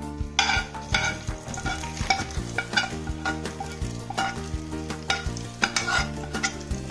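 Hot coconut-oil tempering of mustard seeds, cumin, curry leaves and dried red chillies sizzling as it is poured into cooked dal, with a metal spoon scraping it out of the pan in repeated strokes. Soft background music plays underneath.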